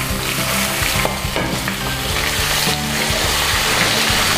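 Raw chicken pieces sizzling in hot oil in a steel kadai as they are stirred, the frying with onion and ginger-garlic paste just begun; the sizzle grows louder about three seconds in.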